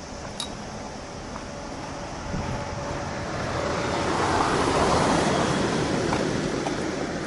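A white minivan passing close by from behind and driving on ahead, its engine and tyre noise swelling to a peak a little past halfway and then fading.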